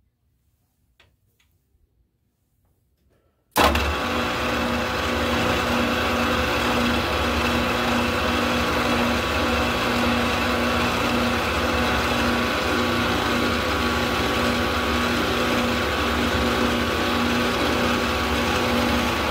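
Near silence with a few faint clicks, then about three and a half seconds in the milling machine's spindle sound cuts in abruptly. It runs steadily to the end, a steady hum with a constant whine, as it turns a ball bearing edge finder at about 1000 RPM.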